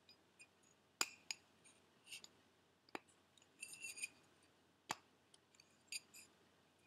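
Faint, scattered metallic clicks and light clinks as a turbo's oil deflector is fitted into the metal compressor plate by hand: about five sharp clicks, with a short ringing clink about four seconds in and another near the end.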